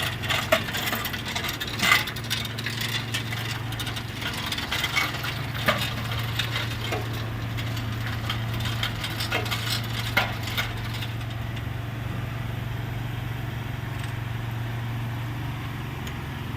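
Scattered metallic clinks, knocks and rattles of the engine and tools being handled as the engine is lowered onto the chassis. The clinks are busiest in the first ten seconds or so, then die down, over a steady low hum.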